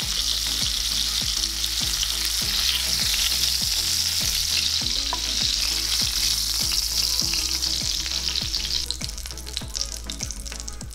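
Floured whole croakers shallow-frying in hot oil in a cast-iron skillet, a dense steady sizzle that thins out and fades near the end.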